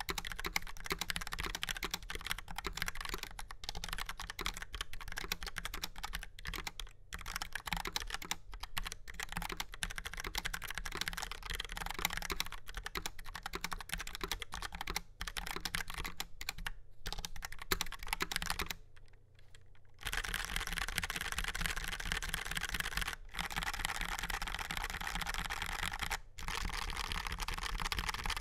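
Fast typing on a Logitech POP Keys mechanical keyboard with tactile TTC Brown switches, a steel plate and rounded ABS keycaps: a steady stream of key clacks. About two-thirds of the way through the keystrokes stop for about a second, then resume faster and denser.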